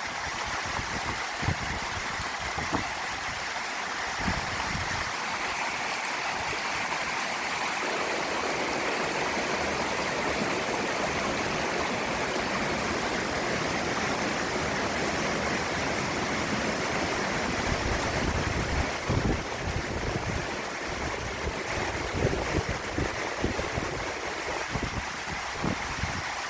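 Mountain stream rushing over rocks, a steady hiss of running water that grows fuller about eight seconds in. Wind buffets the microphone in the first few seconds and again near the end.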